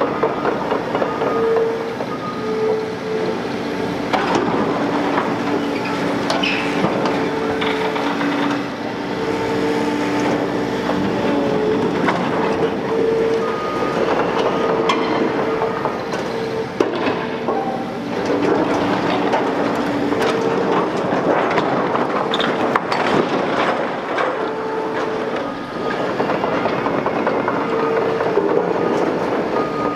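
Liebherr R930 demolition excavator working with a hydraulic demolition shear: engine and hydraulics running under load, with a whine that comes and goes at two pitches, over continual clattering and crashing of falling metal and concrete debris.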